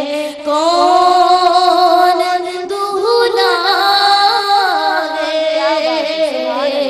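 A woman singing a naat, a devotional poem in praise of the Prophet, solo into a microphone, holding long ornamented notes that slide between pitches.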